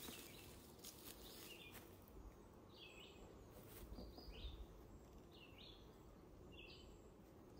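Faint bird song: one bird repeating a short, curved high note about once a second, over a low steady outdoor hiss.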